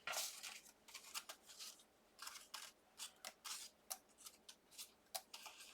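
Die-cut cardstock pieces being handled and sorted by hand: a string of faint short taps and paper rustles.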